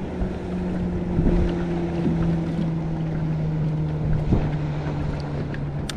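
A boat motor humming steadily, its pitch sinking slowly, with wind buffeting the microphone.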